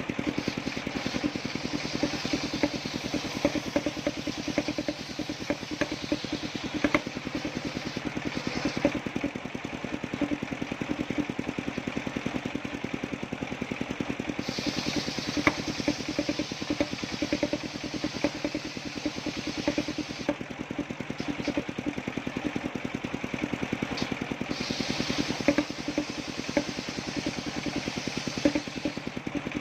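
Engine-driven circular sawmill running steadily, its engine pulsing fast and even. A high hiss from the saw blade comes in three times for several seconds, as the blade cuts through coconut trunk.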